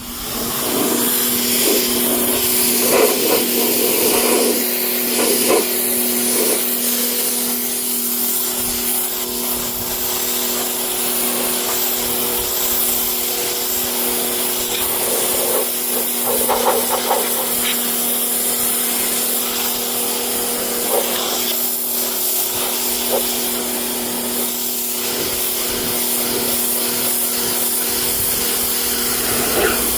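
Pressure washer switching on and running steadily: the pump's motor hums under a loud hiss of water spray blasting soaked car carpet and seat fabric.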